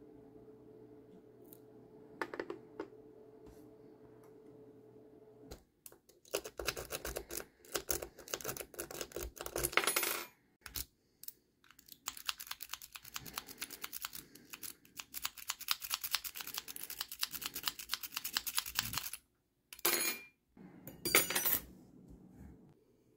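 Small metal lock parts clicking and clinking against a hard surface as a lock is taken apart. The clicks come in dense runs, with a few brighter metallic rings.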